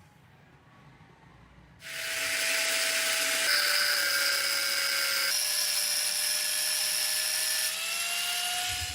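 An electric power tool runs at speed: a loud hissing whine that starts about two seconds in, shifts pitch slightly a few times and stops abruptly at the end.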